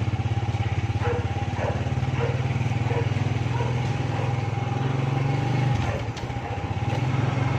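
Motorcycle engine running steadily with an even low pulsing, dipping briefly about six seconds in.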